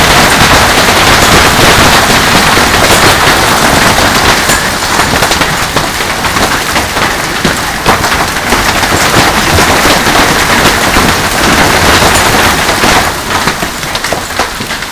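Heavy hailstorm: hailstones pelting a swimming pool and yard in a loud, dense clatter of countless impacts, easing a little near the end.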